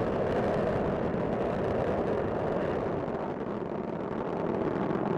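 Space Shuttle Discovery's solid rocket boosters and main engines during ascent: a steady, dense rumble that dips slightly in the middle.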